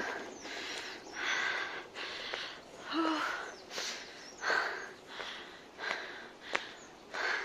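A hiker's heavy breathing, panting in and out about once a second from the strain of climbing a steep uphill trail, with a sharp tap late on.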